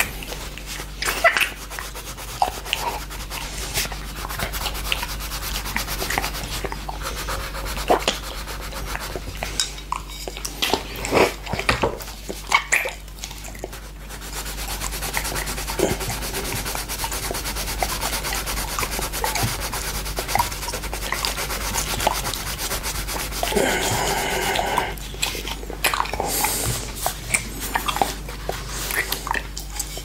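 Coloured pencil scratching over paper in repeated strokes, mixed with wet licking and smacking of a tongue on a glass plate. The scratching becomes steadier about halfway through.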